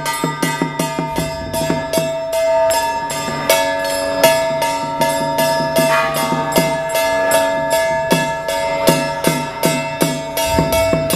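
Traditional Chinese temple ritual percussion: rapid, even metallic strikes about three a second, with ringing bell-like tones held underneath.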